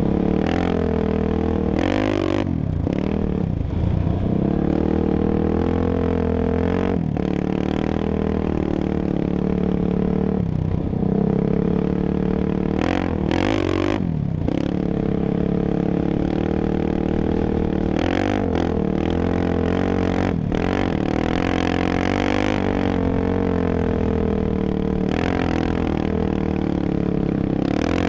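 Sport ATV's engine running at speed on sand, its pitch dipping and climbing again several times as the throttle is eased and opened.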